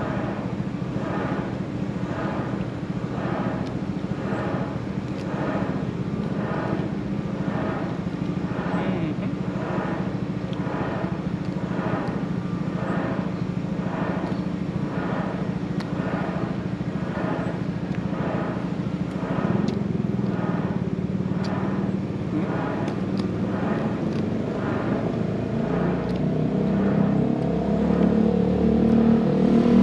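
A motor runs with a steady low drone and a regular pulse a little faster than once a second. Near the end, an engine rises in pitch and grows louder.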